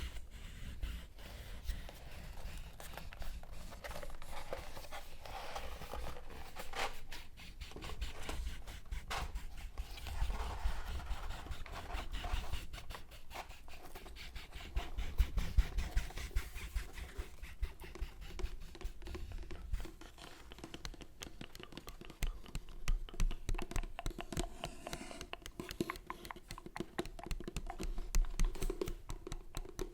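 Paper being handled close to the microphone: irregular crinkling, rustling and scratching, louder in patches about halfway through and again in the last third.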